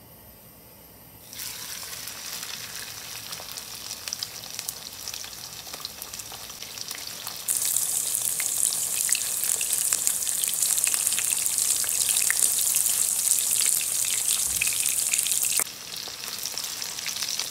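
Breaded pork cutlet frying in hot pork lard in a pan, a crackling sizzle. It starts about a second in and grows louder about halfway through.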